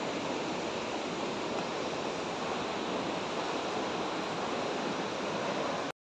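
Steady rushing noise of a tall waterfall, cutting off suddenly near the end.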